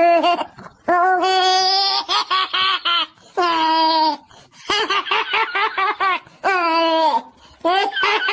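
High-pitched laughter in several bouts: quick runs of short pulses, about four to five a second, alternate with longer drawn-out notes.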